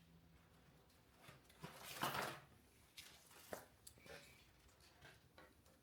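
Faint handling of a car wiring harness: a short rustling scrape about two seconds in, as wire is dragged through the bundle, and a few light clicks from the wires and tools.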